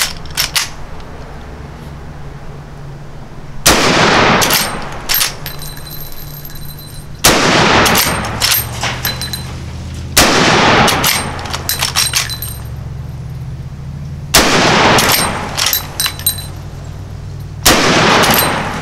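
Henry lever-action rifle in 45-70 Government fired five times, about three to four seconds apart, each heavy report trailing off in a long echo, with lighter metallic clacks between shots as the lever is worked.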